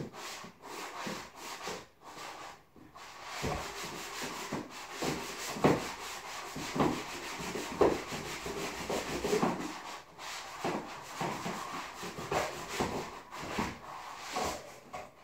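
Drywall joint compound being hand-sanded with a sanding pad: rough scratchy back-and-forth strokes against the wall, about two a second, with a short pause partway through.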